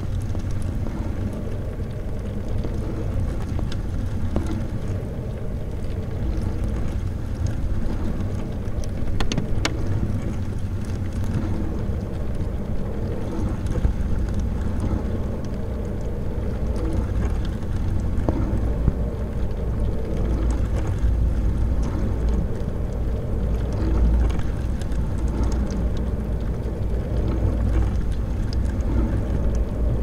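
Dishwasher running: a steady low motor hum under the swish of the wash water, with a couple of small clicks along the way.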